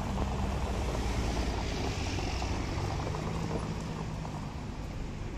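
Motor vehicle running: a steady low engine hum with road noise, swelling slightly midway.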